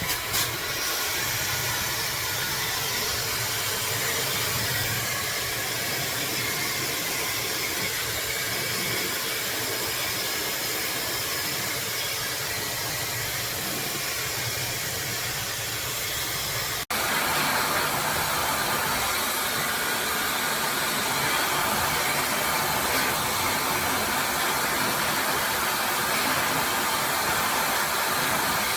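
Cosy Companions ZCY883 hair dryer, with a high-speed brushless motor, blowing steadily as a continuous airy rush. Just past halfway it cuts out for an instant and comes back slightly louder.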